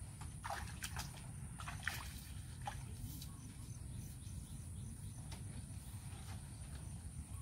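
Feet wading through shallow muddy water, a few splashes and sloshes in the first few seconds, then quieter as she steps onto the grass bank; a steady low rumble runs underneath.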